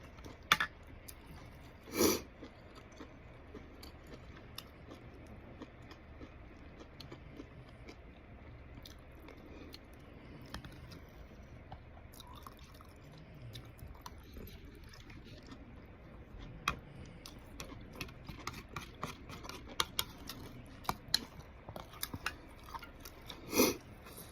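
Close-up eating sounds: someone chewing soup-soaked tofu puffs and noodles, with many small wet mouth clicks. Two louder short sounds come about two seconds in and near the end.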